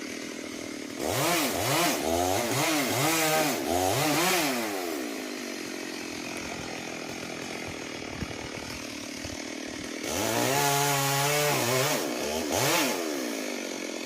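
Two-stroke chainsaw cutting a genipap tree: the engine revs up and down in quick surges for a few seconds, drops back to a steady idle, then revs hard again for about three seconds near the end.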